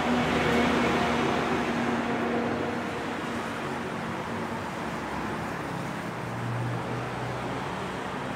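City road traffic: a bus's engine hum close by, loudest in the first second or two and fading away, over a steady wash of passing cars.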